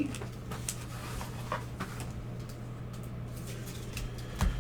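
Trading cards being handled and sorted: faint scattered clicks and rustles over a steady low hum, with a louder knock near the end.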